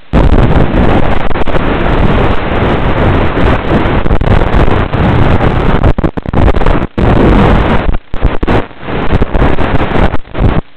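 Loud, steady rushing noise over the analog FPV video link from a flying wing in fast low flight, cutting out briefly several times as the radio signal breaks up.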